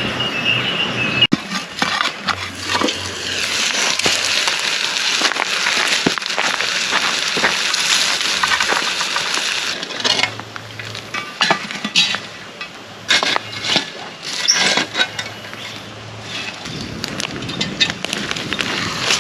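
Campfire crackling and hissing, with sharp cracks and metallic clinks of camp cookware that come thick and fast in the second half.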